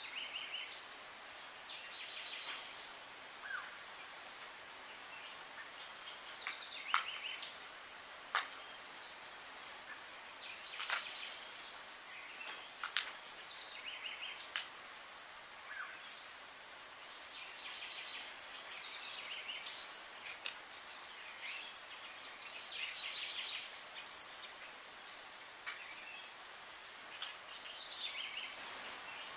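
Tropical forest ambience: a steady, high-pitched insect trill, with many short chirps scattered over it.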